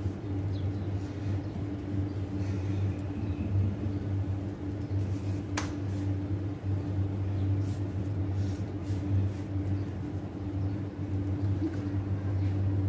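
Steady low electrical hum in a kitchen, with one sharp click about five and a half seconds in.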